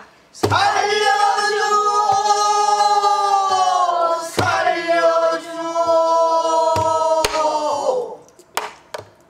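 A woman sings pansori in the strained, husky style, drawing out one long wavering phrase that ends near the close. A few strokes on a buk barrel drum punctuate the phrase.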